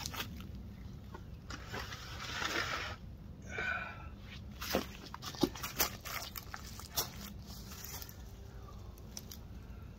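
Rustling and a few light clicks and knocks as small plastic nursery pots are handled in a tray, over a steady low background hum.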